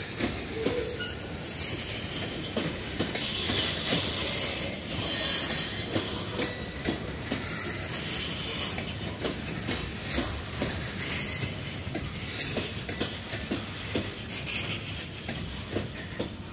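Loaded CSX phosphate hopper cars rolling past, their wheels clicking irregularly over the rail joints, with a high hissing squeal from the wheels that swells and fades twice.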